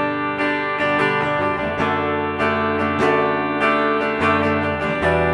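Washburn N4 electric guitar played with a clean tone on its bridge pickup: picked notes and strummed chords ringing out one after another.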